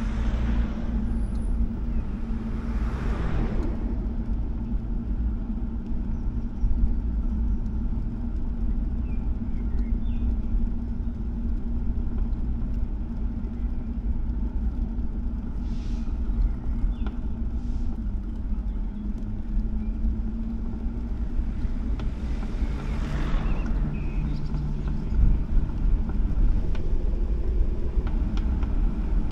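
Motor vehicle engine running steadily as it drives along a road, over a low rumble. Other traffic swells past about three seconds in and again around twenty-three seconds in.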